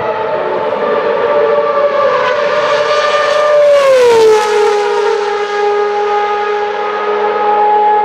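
Open-wheel racing car's engine at high revs, a high, steady note whose pitch glides down about four seconds in as the car goes past, then holds at the lower pitch.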